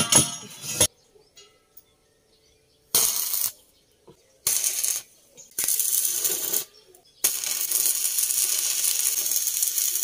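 Stick arc welding on steel square tubing: a dense, even crackling hiss in several short bursts, then one long continuous bead from about seven seconds in. A ringing metallic clank comes right at the start.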